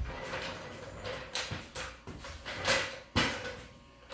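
Scraping and rattling of a steel floor jack being wheeled and shoved into place on a concrete floor, in a run of short scrapes with a sharp knock about three seconds in.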